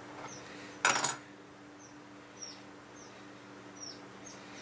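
Crimping pliers set down on a wooden workbench with a brief double clack about a second in. Faint short high chirps repeat throughout over a steady low hum.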